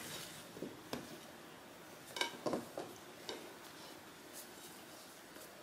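Light taps and soft knocks of hands laying a rolled dough log onto a floured plate. The taps are scattered: one about a second in, then a cluster between two and three and a half seconds in.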